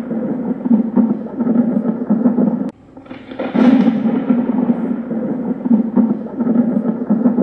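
Loud, dense rumbling noise that drops off sharply about two and a half seconds in and again near the end, swelling back up each time in a cycle of about five seconds.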